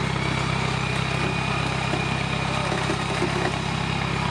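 Off-road vehicle's engine running steadily: an even low drone that holds without revving.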